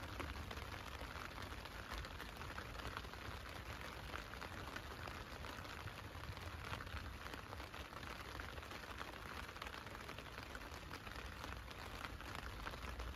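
Steady rain pattering on a tent's fabric roof, heard from inside the tent as a continuous patter of many small drops.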